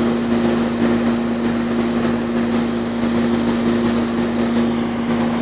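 Air-conditioning condensing unit running: a steady electrical hum from the compressor under the noise of the condenser fan's airflow.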